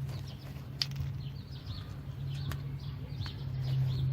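Small birds chirping repeatedly in short calls over a steady low hum, with a few sharp light clicks.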